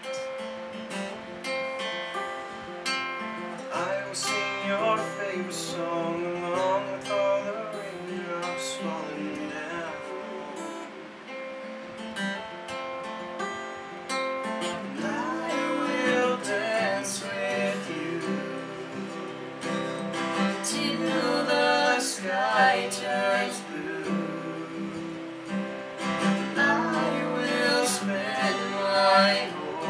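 Acoustic guitar strummed steadily in chords, with singing over it.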